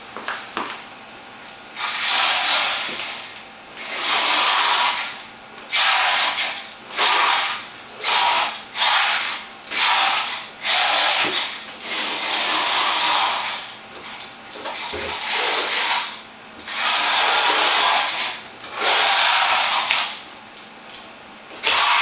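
Small robot's two PWM-driven DC gear motors whirring in repeated bursts of one to two seconds, about ten times, with short pauses between, as it drives its wheels back and forth under PID control to hold its distance from a box sensed by its IR sensors.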